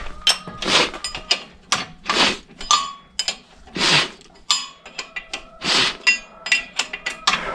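Hand tool working on the steel driveshaft coupling of a tractor-mounted log-splitting cone. Irregular sharp metallic clinks with brief ringing, mixed with short scraping strokes about every one to two seconds.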